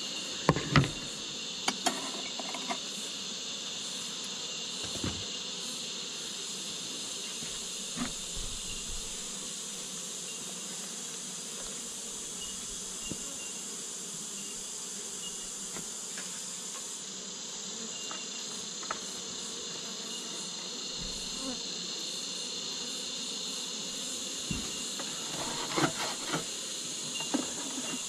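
Honeybees buzzing steadily around an open hive. A few sharp clicks and knocks of a hive tool and wooden frames come near the start and again near the end.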